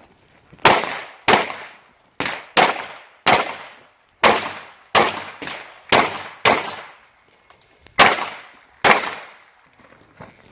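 Handgun shots fired in a timed string: eleven sharp reports at an uneven pace of roughly one to two a second, each trailing off in a short echo.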